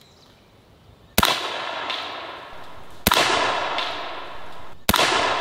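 Three sharp reports from a Zeus big-bore air rifle with a 58-calibre barrel, firing a 24-gauge shotgun shell. They come about two seconds apart, and each trails off in a long echo.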